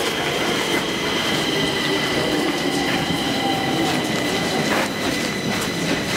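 Rail vehicle running beside a station platform: a steady rumble with a constant high-pitched whine of several held tones.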